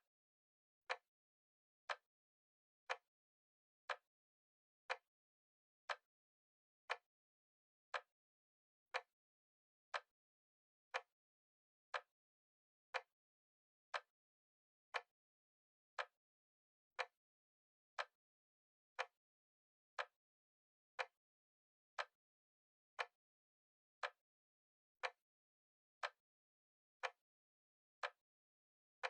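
A clock-style tick sounding once a second, evenly spaced like a timer counting off seconds, with dead silence between the ticks.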